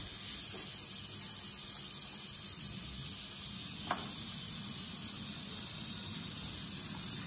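Gas hob burner running on a high flame with a steady hiss and low rumble, heating a wok of sauce toward the boil. A short click about four seconds in as the burner knob is turned.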